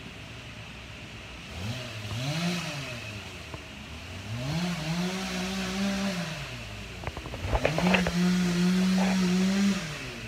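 Chainsaw revving up to full throttle and back down three times, the last run held longest, near the end. A cluster of sharp cracks and knocks comes just before that last run.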